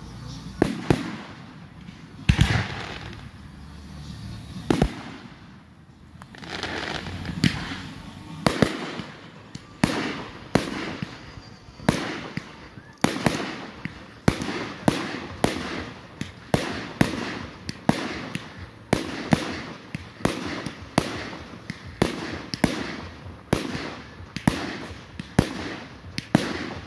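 Fireworks display: aerial shells bursting with sharp bangs, each trailing off in an echo. A few scattered bangs at first, then from about eight seconds in a rapid barrage of roughly two bangs a second.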